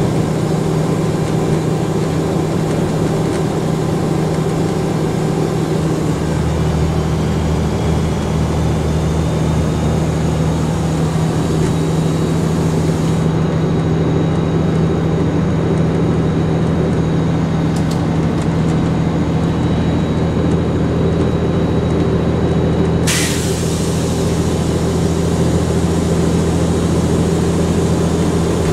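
Volvo Olympian double-decker bus's turbocharged diesel engine running under way, with a high turbo whistle that climbs over several seconds and then holds steady. About two-thirds of the way through, a short sharp hiss of air cuts across it.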